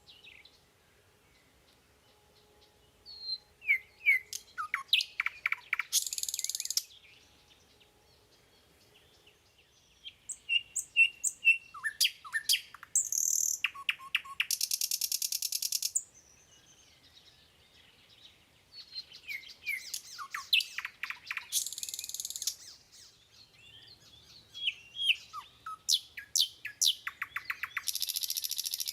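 Songbird singing: repeated phrases of quick descending chirps, each ending in a buzzy trill, four times with short pauses between.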